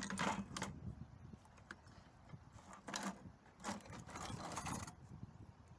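Grinding wheels and flap discs clinking and scraping against each other in a plastic bucket as a hand rummages through them. Scattered short knocks come near the start and about three seconds in, with a longer clatter around four seconds in.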